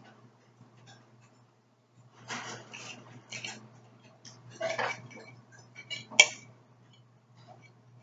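Steel knife and fork cutting steak on a ceramic plate: scraping strokes of the blade against the plate, then a few sharp clinks of metal on the plate, the loudest about six seconds in.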